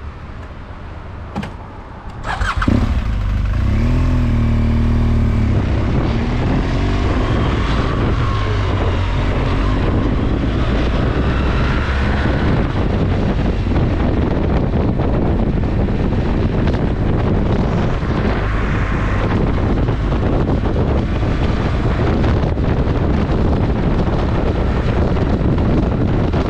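BMW R1200GS Adventure boxer-twin engine started a couple of seconds in after a few clicks, idling briefly, then running steadily under way with wind noise on the microphone.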